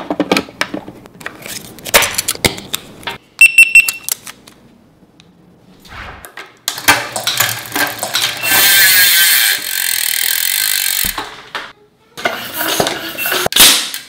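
Clicks and knocks of equipment being handled, a short electronic beep about three and a half seconds in, then several seconds of steady high buzzing from a road bike's rear wheel spinning on a stand, followed by more clicks.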